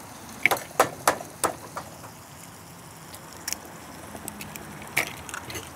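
Sharp clicks and taps of raw eggshells being cracked open and handled over a pan of simmering tomato sauce: several in the first two seconds, then a couple more spaced out later, over a steady faint hiss.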